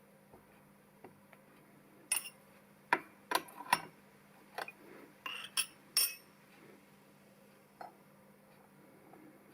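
A run of sharp metallic clinks and knocks, about ten of them in four seconds, with a short ring after each, as metal workpieces are handled and knocked together. One more clink comes near the end, over a faint steady hum.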